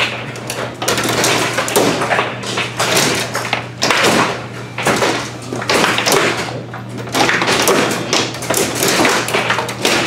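Foosball table in fast play: the ball cracking against the plastic men and the table walls while the rods slide and clunk against their stops, in rapid irregular clacks and thuds.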